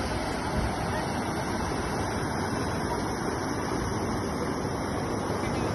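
River rapids rushing steadily over rocks, a continuous even roar of white water.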